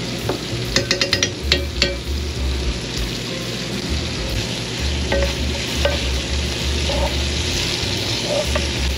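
Diced pork sizzling steadily as it fries in a nonstick pan while it is stirred with a bamboo spatula. About a second in there is a quick run of clicks as a metal spoon taps against the spatula, and a few single knocks of utensils on the pan follow.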